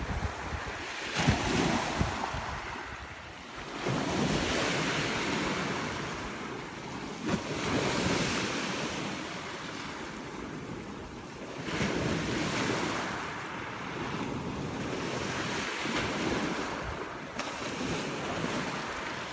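Small waves breaking and washing up a pebble beach, the surf swelling and easing every few seconds, with wind buffeting the microphone.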